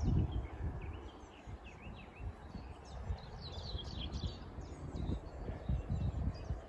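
Small birds chirping, with quick short notes throughout and a thicker cluster about three to four seconds in. Low rumbling thuds sound at the start and again after about five seconds.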